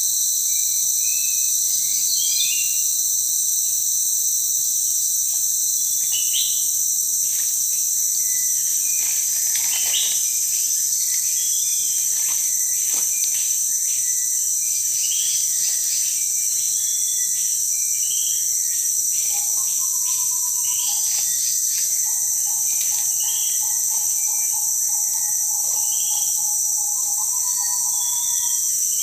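Rainforest insect chorus: several high-pitched insect calls buzzing steadily together, with short bird chirps scattered throughout. In the second half a lower, pulsing trill repeats on and off.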